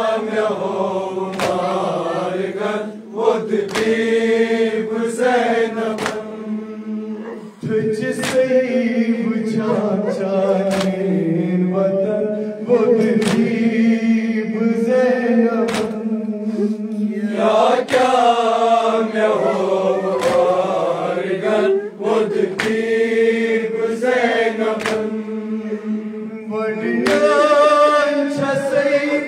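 A male voice sings a noha (a Shia lament) through a microphone, with other men's voices chanting along. Sharp hand slaps on the chest (matam) keep a steady beat about once a second.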